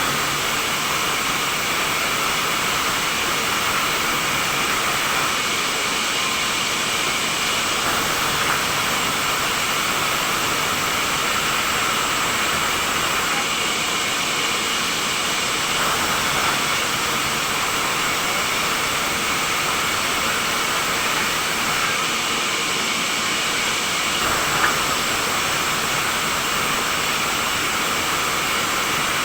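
Sawmill saw running with a steady, unbroken noise, with a few small knocks.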